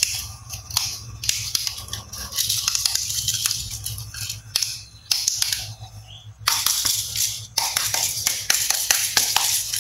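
Cloth-gloved hands handling a plastic toy dart gun loaded with foam darts: irregular stretches of rustling and scraping of fabric on plastic, with light plastic clicks. A steady low hum runs underneath.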